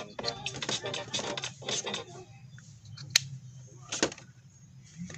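Background music for the first couple of seconds, then two sharp plastic clicks about a second apart as the Realme earbuds are seated in their charging case.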